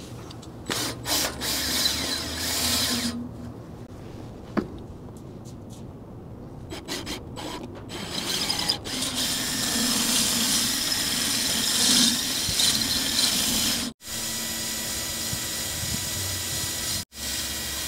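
Tools at work on a car's drum brake: scattered sharp metal clicks and clinks, then a power tool running steadily for several seconds. The sound breaks off abruptly twice near the end.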